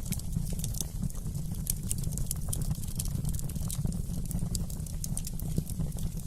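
Wood fire in a fireplace crackling, with many small irregular pops and snaps over a steady low rumble.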